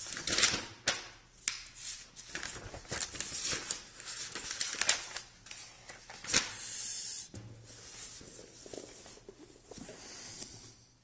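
Paper book pages rustling and crackling as they are handled and turned, in a quick string of sharp crinkles and taps that thins out to a softer rustle after about seven seconds.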